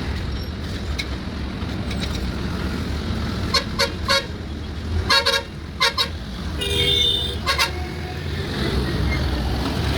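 Road traffic on a highway: a steady engine and tyre rumble, with vehicle horns honking in a run of short toots in the middle, one held a little longer.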